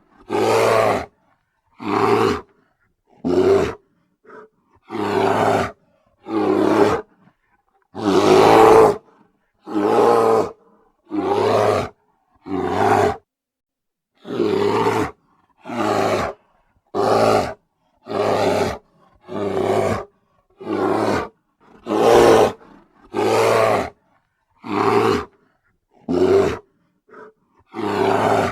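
Bear roaring over and over: about twenty short, rough roars, each up to about a second long, with brief silent gaps between them and a few shorter, fainter ones among them.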